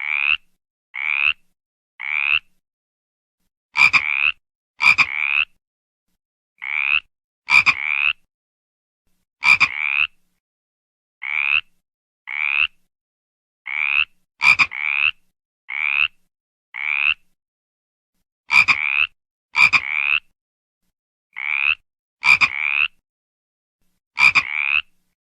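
A frog croaking repeatedly: short calls of about half a second, each rising in pitch, coming singly or in quick pairs every second or so with silence between, some starting with a sharp click.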